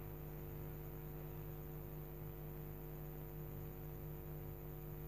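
Faint steady electrical hum, a low tone with several even overtones that does not change.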